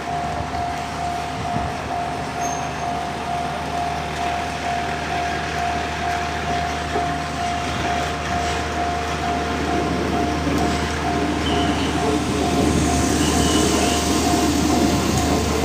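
Level-crossing warning bell ringing steadily in a pulsing tone. About two-thirds of the way in, the rumble of an N700-series Shinkansen car rolling slowly across the crossing builds up, with short wheel squeals near the end.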